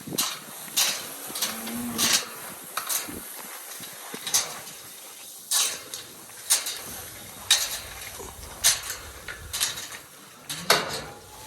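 Cattle grazing tall pasture grass: a string of short, crisp rips, roughly one a second and irregular, as they tear the grass off.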